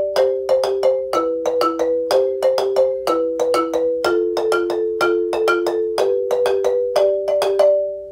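Two wooden Zimbabwean-style marimbas struck with mallets, playing interlocking parts of a short repeating basic pattern at a steady tempo, several strokes a second. Near the end the playing stops, with a last note left ringing.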